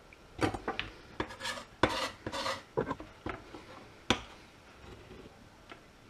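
A kitchen knife and a metal roasting tray knocking and scraping against a wooden chopping board: a quick run of sharp clicks and short scrapes over about four seconds, the loudest knocks about two and four seconds in, as chopped basil is scraped onto the tomatoes.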